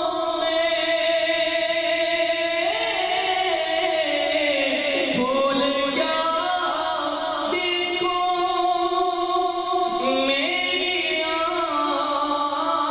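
A man singing a naat, an Islamic devotional song, solo into a microphone, holding long notes that bend and slide in pitch.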